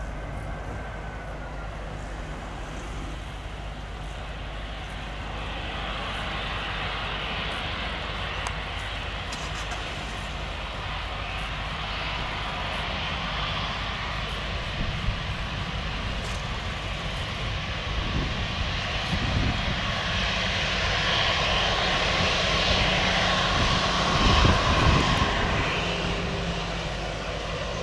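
Airbus A320-200 jet airliner's twin engines running as it rolls along the runway after landing. The rushing jet noise swells as the aircraft approaches, is loudest about three-quarters of the way through, then eases slightly.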